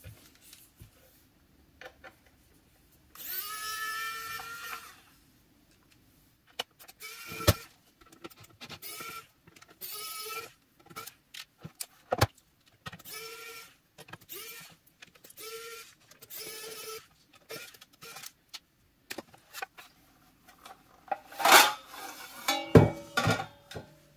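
Small cordless electric screwdriver motor whirring in many short bursts as it backs out the metal case screws of a bench power supply, played sped up. Loud metallic clattering near the end as the case cover comes off.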